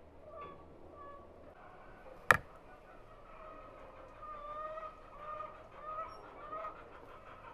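Poultry calling, a string of repeated short calls from about halfway through, roughly one every two-thirds of a second. A single sharp click about two seconds in is the loudest sound.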